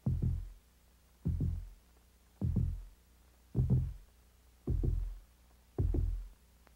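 Slow heartbeat sound effect: a low double thump about once a second, six beats in all.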